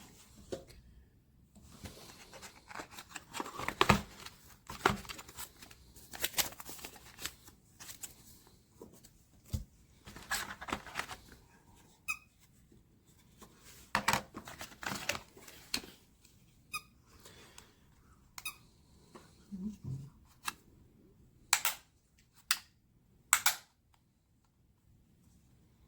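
Irregular handling noises: rustling and tearing sounds with scattered clicks and squeaks, and a few sharper clicks near the end.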